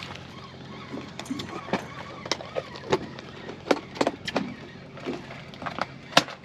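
Irregular sharp clicks and knocks, about a dozen, the loudest about six seconds in, over a low steady hum.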